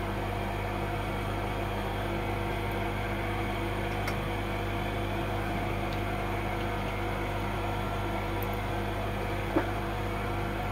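Steady electrical hum with a fan-like whir underneath, a few faint ticks, and a single light knock near the end.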